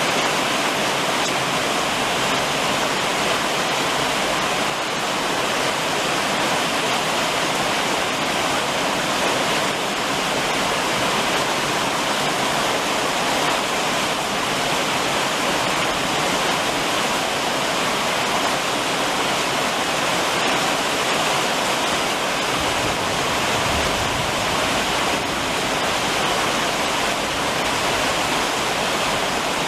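Steady summer rain pattering on a roof, an even, unbroken hiss of drops.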